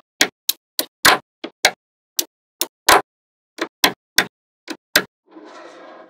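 Small neodymium magnetic balls clicking together sharply as rows are snapped onto a magnet-ball structure, about fourteen irregular clicks. Near the end, about a second of soft scraping rustle as the assembled piece is moved on the table.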